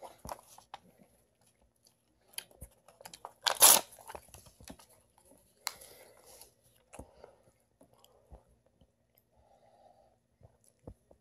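A person chewing a piece of printed paper: scattered mouth clicks and tearing, papery noises, loudest about three and a half seconds in. Near the end, a sip from a drinking glass.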